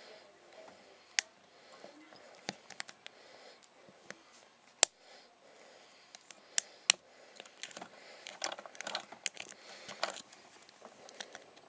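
Steel lock pick and tension wrench working the pins in the keyway of a Yale 50mm brass padlock: irregular sharp metallic clicks, a few much louder than the rest, with a stretch of denser scraping and rattling about two-thirds of the way in.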